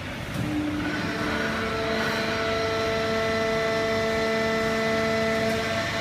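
Fully automatic horizontal hydraulic baler with its feed conveyor running: a steady mechanical din carrying a whine of several steady tones, which shift and settle about a second in.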